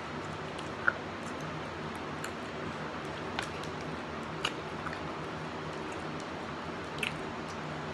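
A person eating chicken wings: a few short, sharp mouth smacks and clicks, the loudest about a second in, over a steady low hum.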